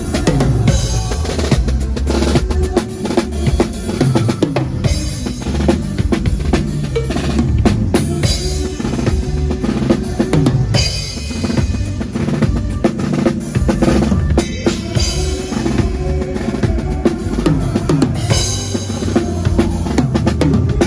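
Drum kit played with a band: kick drum and snare hits and fills over sustained bass and other pitched instruments.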